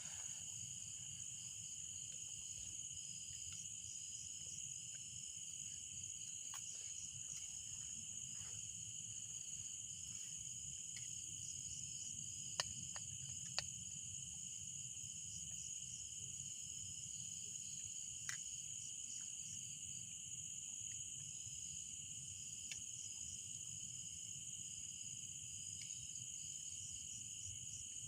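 A steady chorus of crickets or similar forest insects, a continuous high chirring at two pitches. A few sharp clicks stand out near the middle.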